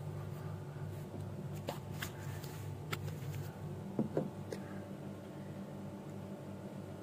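Handling noise of a phone being moved about: a few scattered rustles and light knocks, the loudest a double knock about four seconds in, over a steady low hum.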